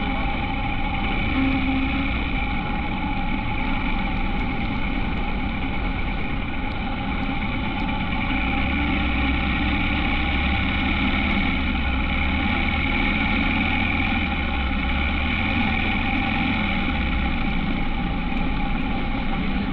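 Honda H'ness CB350's single-cylinder engine running steadily on the move, with a constant drone and no change in speed.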